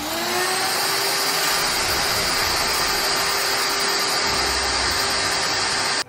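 A vacuum cleaner motor switched on, its whine rising quickly as it spins up, then running steadily and loud.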